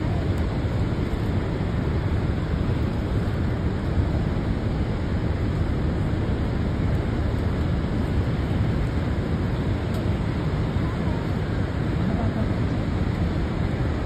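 Steady rushing roar of the Rhine Falls and turbulent river water, heavy in low rumble, with wind buffeting the microphone.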